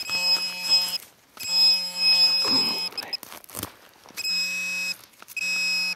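Metal detector sounding a steady electronic tone in four bursts over a high-tone target, which the detectorist expects to be a bottle cap. A scrape and a sharp click come between the bursts, about halfway through.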